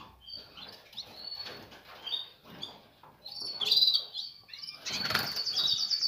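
Caged songbirds chirping with short high calls, then a louder burst of wing-flapping in the cage from about five seconds in.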